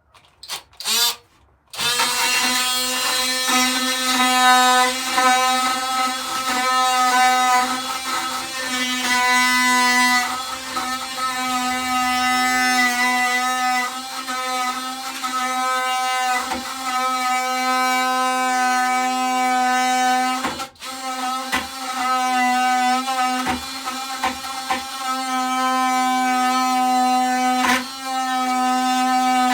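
Power drill motor running at a steady high speed, boring out a tight screw hole for a hinge so the screw will go in. It starts about two seconds in after a few clicks, and cuts out briefly about two-thirds of the way through.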